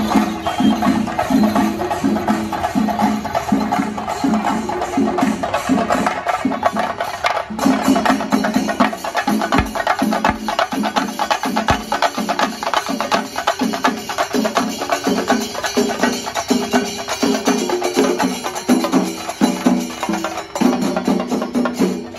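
Traditional Kerala drumming, chenda drums beaten fast with sticks over a steady lower beat, as at a theyyam temple festival.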